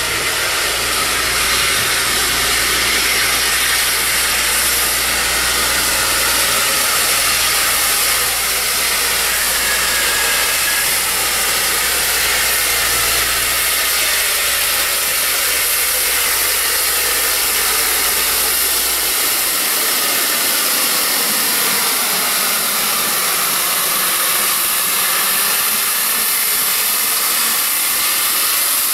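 Steam hissing steadily and loudly from Isle of Man Railway No. 4 Loch, a Beyer Peacock 2-4-0T steam locomotive standing in steam. A low hum underneath drops away about two-thirds of the way through.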